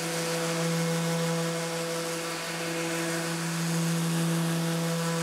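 Random orbital sander with dust extraction running steadily while sanding the end-grain face of a maple and walnut cutting board. It is a constant motor hum with a few fixed tones over an even hiss.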